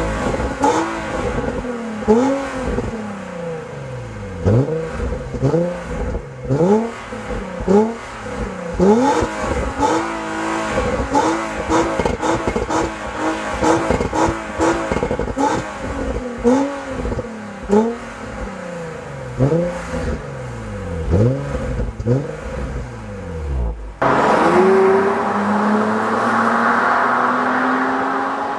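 The exhaust of a 2009 Infiniti M35's 3.5-litre V6, heard at the tailpipes as the parked car is revved again and again: each blip climbs and falls back, about one a second, with a run of quicker short blips midway. Near the end the car accelerates away along a road, its engine note climbing steadily.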